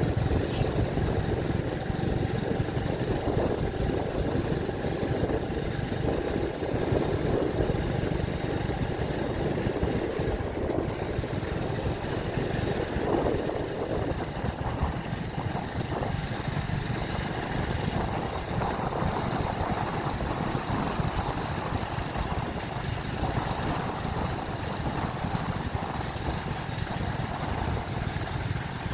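Small motorcycle engine running steadily while riding along a gravel road, with road and tyre noise.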